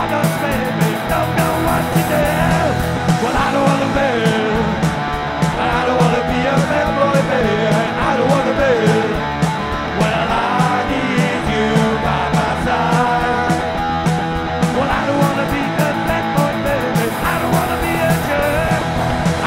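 Punk rock band playing live: distorted electric guitar, bass guitar and drum kit through a club PA, with a steady driving beat.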